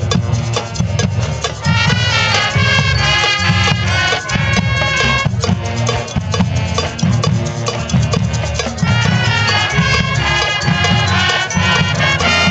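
Marching band playing: brass and drums with mallet percussion, over a steady low beat.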